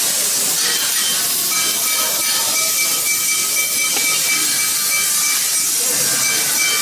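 Steady, loud workshop hiss with faint high whining tones that come and go, the background noise of machinery running in a metal workshop.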